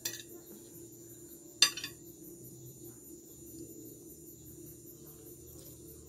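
Metal cutlery knocking against a plate: a light clink at the start and a sharp, louder clink about a second and a half in, over a faint steady hum.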